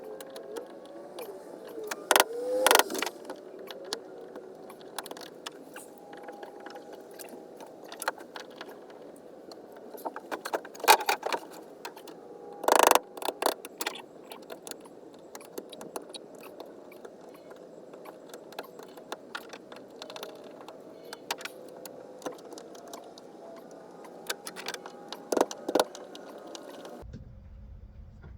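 Metal clinking, clicking and rattling as screws are worked out with hand tools and handled. There are irregular sharp knocks, and a few louder clatters about two and a half, eleven, thirteen and twenty-five seconds in.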